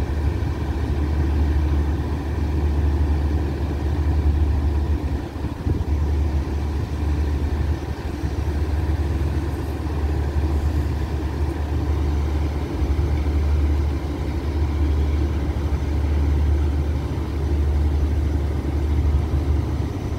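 Stationary diesel passenger train idling at the platform: a steady low engine hum that rises and falls slightly in loudness.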